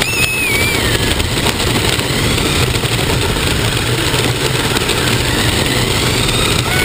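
Radio-controlled car driving across asphalt, heard from a camera mounted on the car: its motor and drivetrain whine, falling in pitch about half a second in and rising again a few seconds later as the car changes speed, over a steady rumble of the tyres on the pavement.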